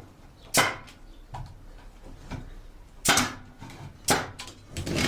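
Pneumatic brad nailer firing 2-inch brad nails into wood, about four sharp shots, each with a short hiss of air.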